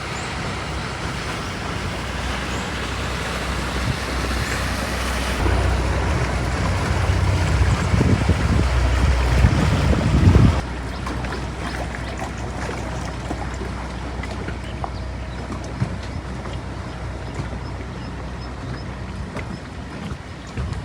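Boat engine running steadily, with wind and water noise. It grows louder in the middle, then drops abruptly about ten seconds in.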